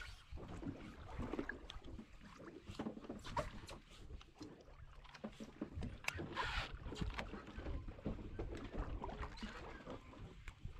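Sea water lapping and slapping against a fishing boat's hull over a steady low rumble of wind on the microphone, with scattered irregular clicks. There is a louder rush of water about six seconds in.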